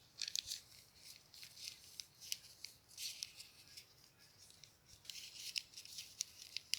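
Hands working craft materials: crisp, irregular rustling and small clicks, coming in clusters about a second in, around three seconds, and from about five seconds on.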